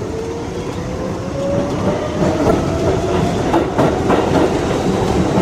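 New York City subway train running, heard from inside the car: a motor whine rising slowly in pitch as the train picks up speed, with wheels clacking over the rails and the rumble growing louder.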